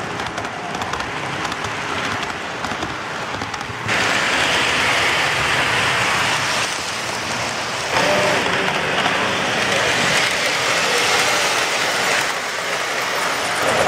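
Lionel O-gauge model trains rolling on three-rail track: a steady rushing rumble and clatter of wheels and motors, jumping abruptly in level several times.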